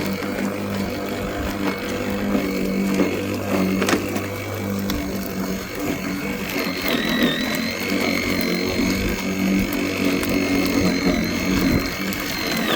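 Worx 40 V cordless lawnmower's electric motor and blade running under load, a steady high whine over a low hum with scattered clicks. The whine dips briefly in pitch about seven seconds in.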